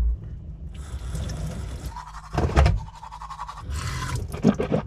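Manual toothbrush scrubbing teeth in two short spells of brushing. A single loud low thump comes about halfway through.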